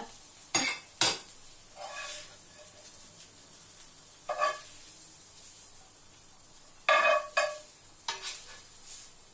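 Metal spatula scraping and clinking against the pan and plates as stir fry is served out: two sharp clinks about a second in and a cluster of clinks near the end, over the faint sizzle of the still-hot pan.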